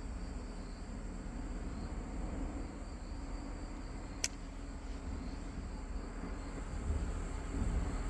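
Steady outdoor background: a low rumble with a faint, steady high-pitched whine over it, and a single sharp click about four seconds in.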